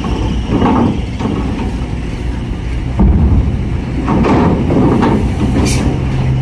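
Diesel cargo trucks driving off a ferry ramp onto steel grating: a steady engine drone with clattering, and a heavy thump about three seconds in as a truck's wheels come down off the ramp. A short hiss comes near the end.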